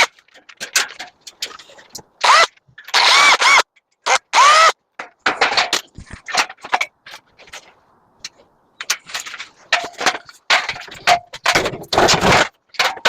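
A cordless drill-driver backing screws out of an aluminium window frame in short trigger bursts, its motor whining up and down in pitch. Clicks and clanks of metal sound between the bursts.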